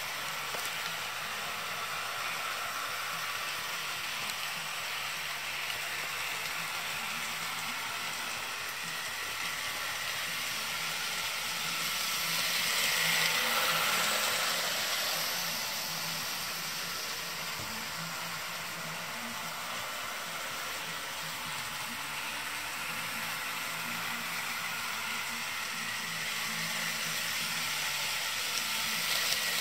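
Rivarossi HO-scale Big Boy model locomotive running on its track: a steady hissing whir of the motor and metal wheels on the rail. It grows louder near the middle as the locomotive passes close by.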